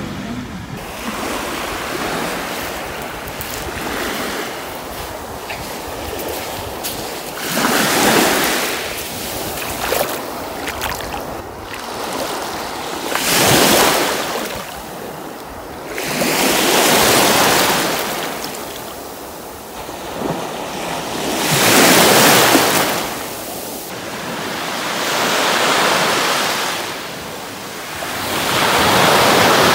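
Sea waves breaking and washing up on the shore, swelling and fading every four or five seconds.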